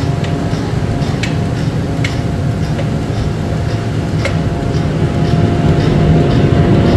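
Steady heavy machinery rumble with a constant hum, and three sharp metallic clinks about one, two and four seconds in.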